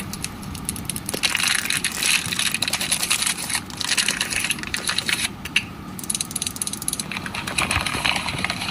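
Dense crackling and crinkling of something being crushed in the hands, in two spells with a short break about five seconds in.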